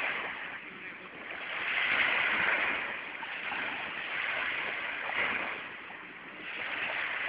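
Sea waves washing onto the shore, the wash swelling and ebbing every two to three seconds.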